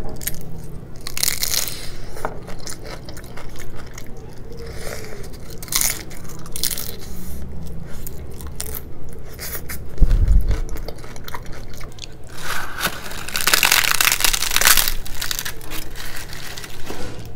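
Close-miked crunching and chewing of crisp deep-fried puri with chana masala, with many sharp crackles and mouth sounds. There is a dull thump about ten seconds in, then a louder spell of crackling from about twelve seconds in as the crisp puri is torn. A steady low hum sits underneath.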